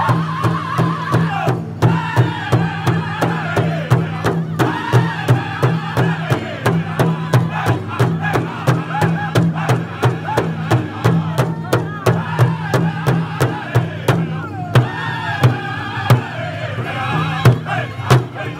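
Powwow drum group singing a grand entry song: several men's voices singing together over a steady, even beat struck with sticks on one large shared drum. The voices drop out briefly a few times between phrases while the drum keeps going.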